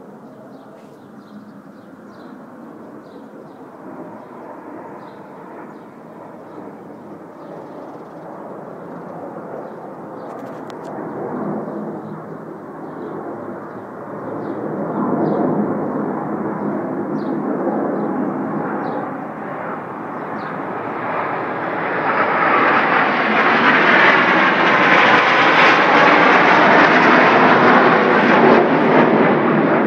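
Jet engine noise from the Aermacchi MB-339 trainers' Viper turbojets, growing steadily louder and loudest in the last third as the formation passes overhead, with a sweeping whoosh at its peak.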